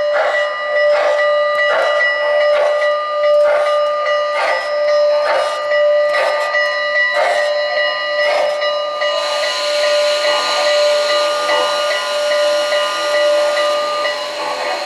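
Model Norfolk & Western J-class steam locomotive's onboard sound system playing a long steam whistle over steady chuffing, about one and a half chuffs a second. The chuffing stops about nine seconds in as the locomotive halts, and a loud hiss of steam let-off takes over while the whistle holds until near the end.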